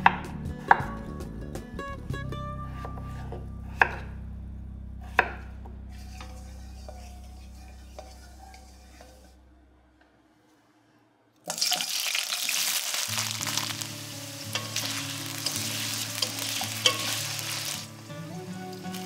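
A kitchen knife chops peeled potatoes into cubes on a wooden cutting board, with a few sharp cuts in the first five seconds. About eleven and a half seconds in, a loud sizzle starts suddenly as the potato cubes go into hot oil in a stainless steel wok, and it carries on steadily.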